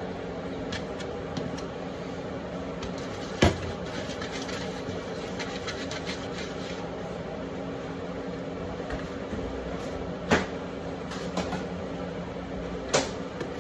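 Pieces of bread dough being shaped into balls by hand on a work surface: light clicks and soft handling, with three sharp knocks about 3 seconds in, about 10 seconds in and near the end, over a steady mechanical hum.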